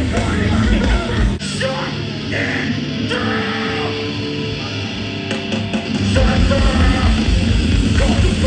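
Loud live hardcore band playing heavy, distorted guitar music with a yelled vocal. The drums drop out about a second and a half in, leaving held guitar and bass notes, then the full band crashes back in about six seconds in.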